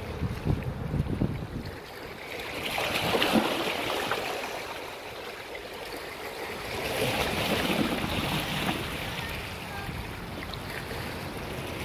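Sea waves washing onto the shore, two swells of surf rising and falling a few seconds apart.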